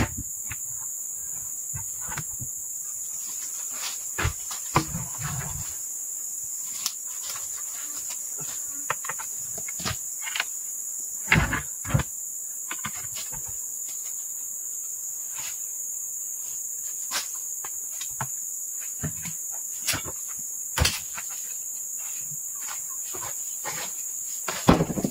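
Steady high insect chorus, with scattered wooden knocks and thumps as heavy sawn ulin (Bornean ironwood) planks are shifted and knock against each other. The loudest knocks come about eleven seconds in and near the end.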